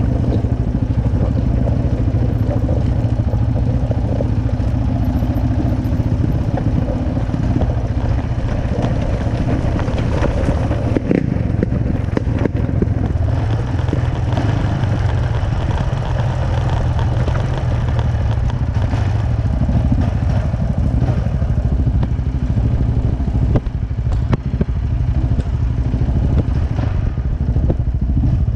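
Yamaha Raptor 700 quad's single-cylinder four-stroke engine running steadily at low trail speed, with a second quad's engine ahead, and clatter and a few sharp knocks from the rough stony trail about midway.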